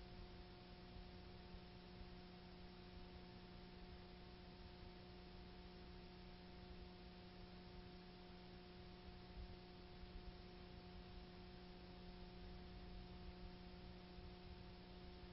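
Near silence: a faint steady hum with low hiss.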